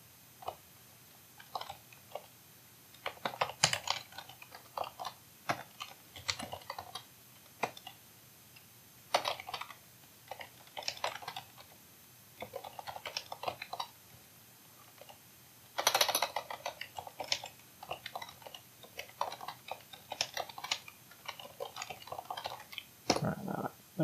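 Typing on a computer keyboard: irregular runs of keystrokes with short pauses between them, the busiest and loudest run about two-thirds of the way through.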